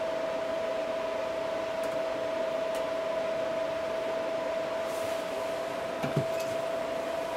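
Steady whirring hum with a constant whine, like a small fan motor, running throughout. On top of it are a few light clicks and a short knock about six seconds in, from hands working the plastic drain trap under the washbasin.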